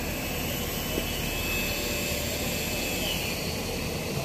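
Steady machinery drone, like a running engine, with a faint whine over it.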